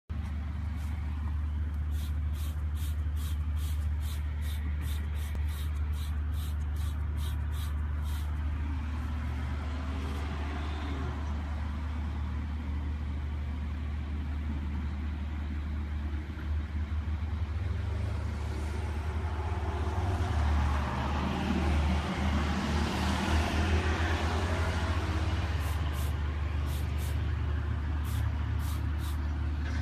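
A trigger spray bottle of cleaner giving quick short sprays, about two a second, in a run over the first several seconds and again near the end. Underneath is a steady low rumble that swells for a few seconds past the middle.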